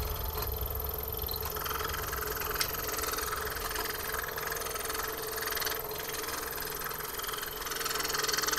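Scroll saw running steadily as its blade cuts through a thin wooden puzzle panel.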